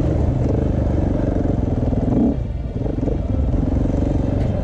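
2017 KTM 690 Enduro R's single-cylinder engine running under way, easing off briefly a little past halfway and picking up again.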